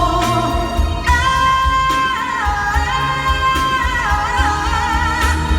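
Singing over a backing track: a high voice holding long, wavering notes that slide between pitches, with a steady low beat underneath.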